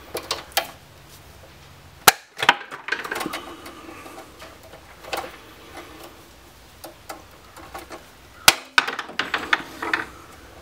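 Hand wire cutters snipping through insulated electrical wires. There are two loud, sharp snaps, one about two seconds in and one near the end, with lighter clicks and the rustle of the cables being handled in between.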